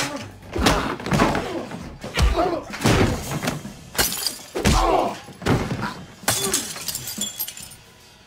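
Film fight sound effects: a rapid string of hard blows and crashes with glass shattering, mixed with short grunts, dying down near the end.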